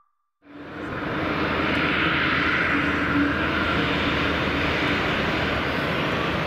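Airbus A321-211 jet airliner's two CFM56 turbofan engines at takeoff thrust during the takeoff roll: a steady, loud jet noise with a low hum beneath it. It comes in about half a second in.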